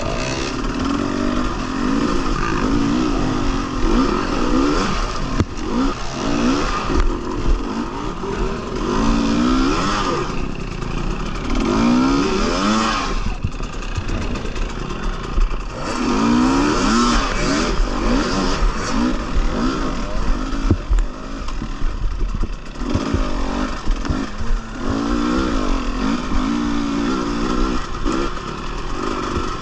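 Husqvarna TX300 two-stroke dirt bike engine revving up and down over and over as it is ridden hard, the pitch sweeping up on each burst of throttle and dropping off between.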